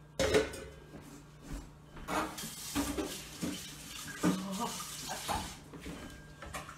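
A stainless steel mixing bowl set down with a clank on a gas stovetop, followed by scattered kitchen clatter and knocks.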